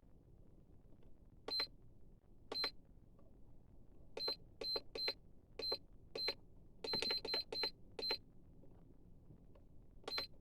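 Short electronic beeps, all at one high pitch, about a dozen of them at uneven intervals with a quick run of five near the middle. They are spaced like button presses on a hobby battery charger's keypad.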